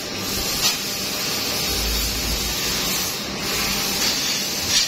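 Steady hiss of a sheet-metal laser-cutting machine at work, with two short clicks, one about half a second in and one near the end.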